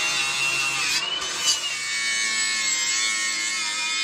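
Ridgid angle grinder grinding off the rivets that hold the dust shield on a rusty 1995 Ford Mustang front spindle: a steady high whine over harsh metal-grinding noise. The pitch wavers and drops a little about halfway through as the disc bears into the steel.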